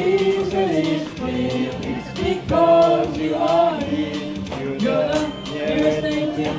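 Song with singing over a steady beat.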